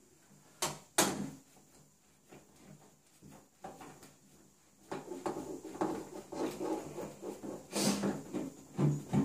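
Metal faucet parts being handled: two sharp clicks a little under a second in and about a second in, then a busier stretch of clinking and rattling in the second half.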